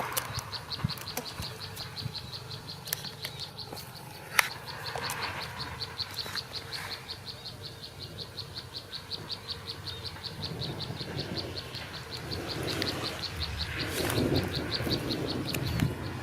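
An insect chirping in a steady high-pitched pulse train, about five chirps a second, with a few sharp clicks, the loudest about four seconds in.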